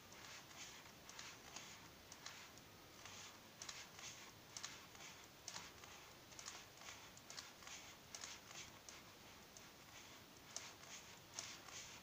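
Pages of a large photo book being turned by hand: faint, irregular paper rustles and flicks, several a second.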